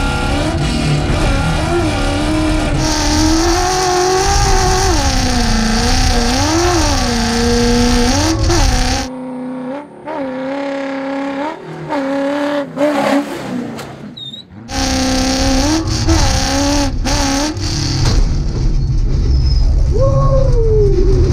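Race-prepared Ford Bronco's engine driven hard on a dirt road, its pitch rising and falling again and again over loud rumble and road noise. Between about nine and fifteen seconds in, it is heard quieter and thinner from outside the truck, then loud again from inside the cabin.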